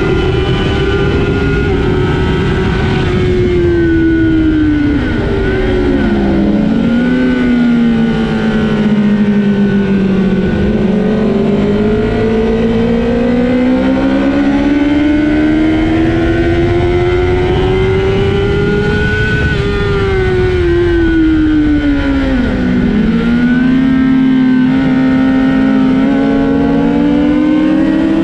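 Honda CBR1000RR Fireblade's inline-four engine at high revs on a racetrack. Its pitch falls as the bike slows, about five seconds in and again around twenty seconds in. In between and near the end it climbs steadily under acceleration.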